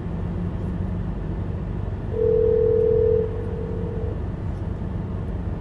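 A phone's ringback tone on speakerphone: one steady two-second ring, about two seconds in, while the call to the dad waits to be answered. Under it runs the steady low rumble of the car cabin.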